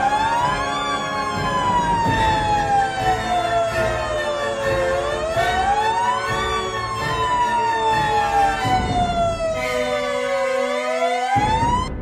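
Fire engine siren wailing in slow cycles: a quick rise, then a long fall, repeating about every five and a half seconds, over a low rumble.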